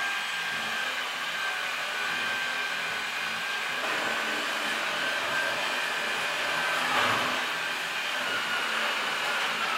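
Steady whine of an electric machine used in kitchen renovation work, running without a break and a little louder about seven seconds in.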